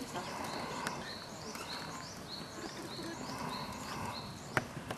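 A small bird singing a repeated high two-part phrase, a rising note then a level one, over steady outdoor background noise. A single sharp click comes about four and a half seconds in.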